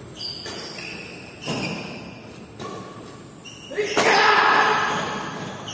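Badminton rally: rackets striking the shuttlecock several times, about once a second, each hit ringing briefly in a large echoing hall. About four seconds in, a loud shout from a player rises over the play and then fades.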